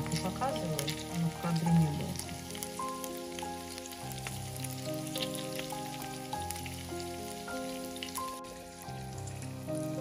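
Meat patties frying in shallow oil in a frying pan, sizzling with a steady patter of small crackles.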